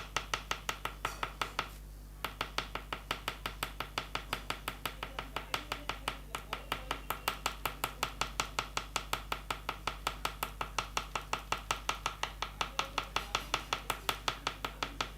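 Oil pastel stick tapping on paper while dabbing dots, a quick even run of about five taps a second with a short break about two seconds in.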